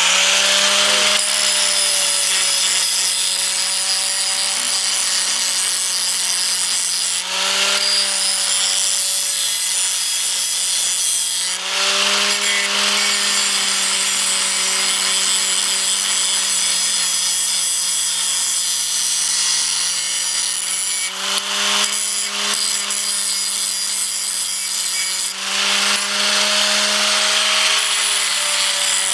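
Electric grinder running under load, grinding the galvanizing off a steel part and cutting it down to size, with a steady motor whine under a harsh grinding hiss. A few times the tool eases off the metal and its pitch briefly shifts before it bites again.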